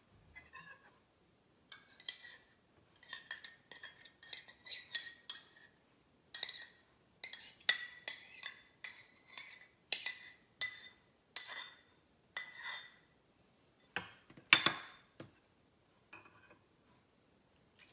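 Small stainless-steel cups and a spoon clinking and scraping against a glass mixing bowl as sauces are tipped in: a long run of light clinks, some with a short ring, the loudest about 14 seconds in.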